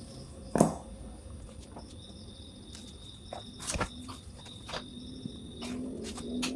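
A few knocks and clicks as a metal motorcycle stator with copper coils is handled and set down on a hard floor, the loudest knock about half a second in. Crickets chirp steadily in the background as a thin high tone.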